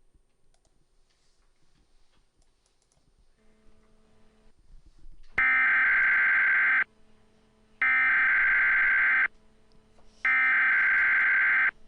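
Three Emergency Alert System SAME header data bursts, identical and each about a second and a half long with about a second between them, starting about five seconds in. They are the digital code that opens an EAS alert.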